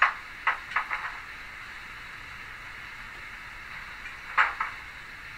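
Sound decoder of a Roco H0 model DB class 86 steam locomotive playing its handbrake sound: a quick run of short metallic clicks at the start and two more about four seconds in, over a steady hiss.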